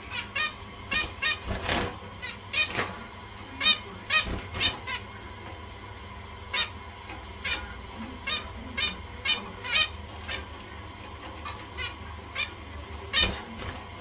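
Finches calling: many short, nasal-sounding calls repeated at irregular intervals, a few each second, with several louder calls among them.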